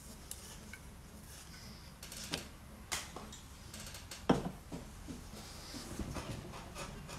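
A few scattered light clicks and knocks over a low steady room hum, the loudest about four seconds in.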